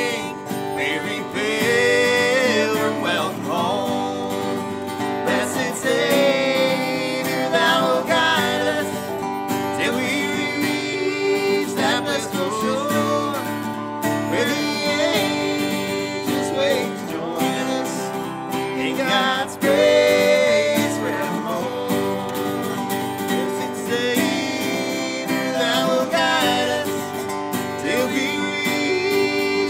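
Acoustic guitar and resonator guitar playing a country-gospel instrumental break, with the guitar strumming chords under a picked melodic lead.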